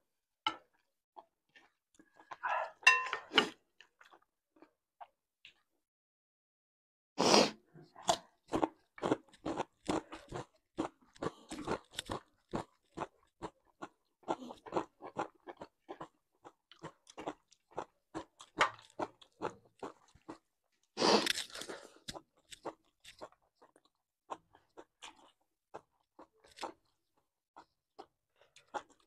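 Close-miked eating sounds: wet chewing of a mouthful of rice and pork eaten by hand, about two chewing smacks a second, with a louder bite near seven seconds in and again about twenty-one seconds in, the chewing thinning out near the end.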